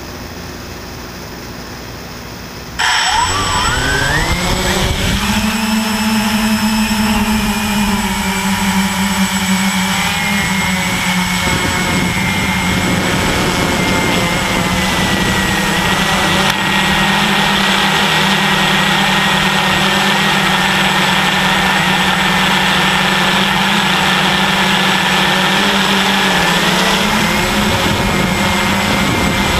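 Walkera QR X350 quadcopter's brushless motors and propellers spinning up sharply about three seconds in with a quickly rising whine as it lifts off, then a steady loud buzz as it flies. Heard through the GoPro mounted on the craft.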